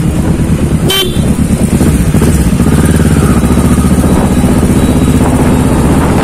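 Sport motorcycle engine running under way at low speed; it rises in level about two seconds in and then holds steady. A brief horn toot sounds about a second in.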